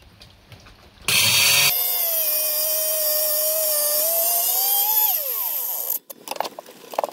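Electric stone-cutting saw switched on about a second in, its motor running at a steady high whine for about three seconds, then switched off and winding down in falling pitch. A few light knocks follow near the end.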